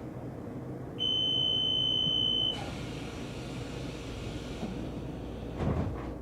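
Taiwan Railway train doors closing at a station stop. A steady, high electronic warning beep sounds for about a second and a half, then compressed air hisses for about two seconds. A thump follows near the end, over the low rumble of the train.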